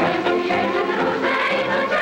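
A large choir singing to orchestral accompaniment, steady and continuous.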